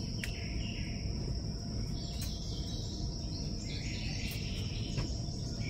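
A steady, high-pitched insect chorus, with a few faint clicks from the wire cage trap being handled as its door bolts are lined up with the holes.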